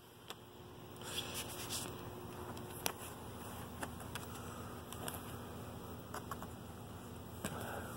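Plastic multi-disc DVD case and its hinged disc trays being handled, giving faint scattered clicks and some rustling.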